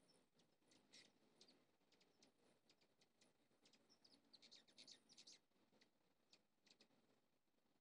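Faint, sharp high chips and ticks from hummingbirds, scattered through, with a quick run of them about halfway through.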